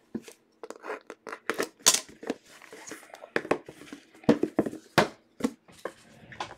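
A hinged cardboard trading-card box being handled and its lid opened, with irregular taps, clicks and rustles of cardboard and cards.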